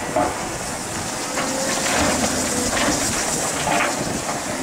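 Caterpillar excavator running as it empties a bucket of soil and stones into a dump truck's bed. The falling dirt and rocks make a run of rattles and knocks in the middle, over the steady noise of the machine.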